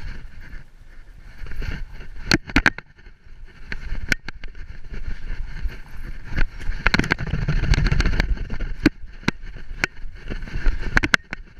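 Rustling and rumbling of a GoPro strapped to a moving poodle's back, the camera mount shifting and fur brushing the housing, with a scatter of sharp clicks and knocks.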